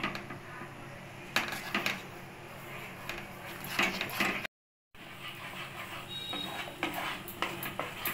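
A spoon scraping and knocking against a nonstick pan as thick, reducing milk is stirred into mawa, in irregular strokes. The sound drops out completely for a moment about halfway through.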